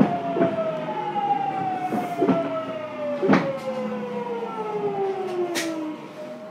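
Hitachi GTO-thyristor VVVF inverter of a Fukuoka City Subway 2000 series train whining in several falling tones as the train slows, with a handful of sharp knocks from the wheels on the track. Near the end the gliding tones give way to a single steady note.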